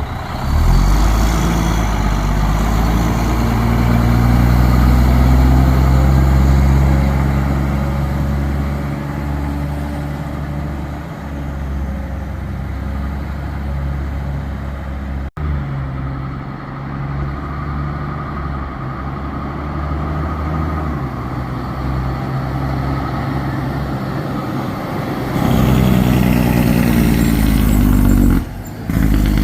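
Diesel engine of a fire department quint running close by, its pitch climbing over the first several seconds, then running steadily, louder again near the end.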